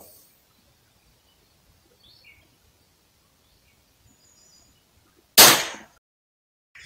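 .22 LR Ruger rifle firing a single shot about five seconds in: one sharp crack that rings off over about half a second. Before it, faint bird chirps.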